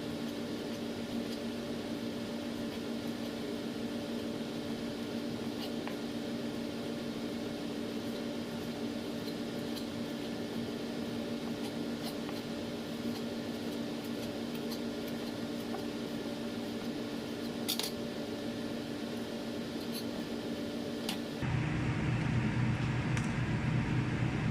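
A steady background hum with a few light clinks of dishes or utensils. Near the end a louder, deeper hum cuts in abruptly.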